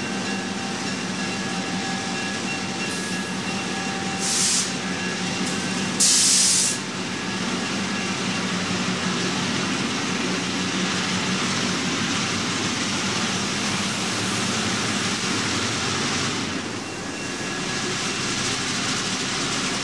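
Diesel locomotive sound running steadily, with two short loud hisses about four and six seconds in.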